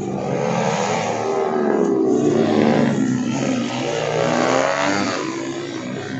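Several small road-race motorcycles revving hard on a practice circuit, their engine notes overlapping and rising and falling in pitch as they accelerate out of the corners. Loudest about two and a half seconds in, with another peak near the five-second mark.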